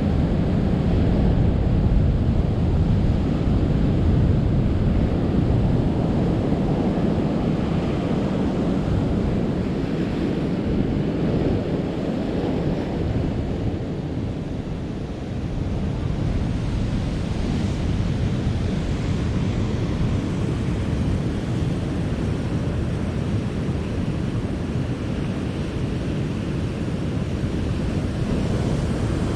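Surf from big ocean waves, a steady rush, with wind buffeting the microphone.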